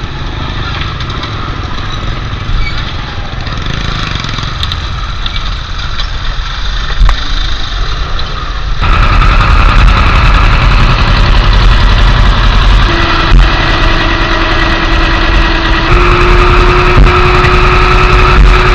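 Small motorcycle engines running at low speed. After a sudden change the sound becomes a louder, steady engine rumble aboard a small river ferry, and a steady hum joins about two-thirds of the way through.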